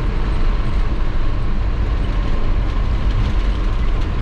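Vehicle driving along: a steady low rumble of engine and road noise.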